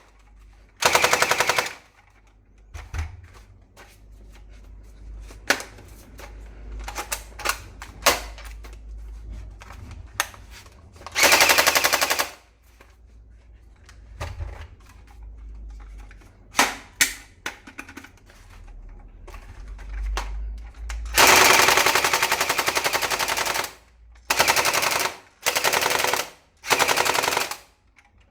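Toy HK417 rifle firing six short bursts of rapid automatic fire, one of them, about two-thirds through, lasting nearly three seconds, with scattered single sharp clicks between the bursts.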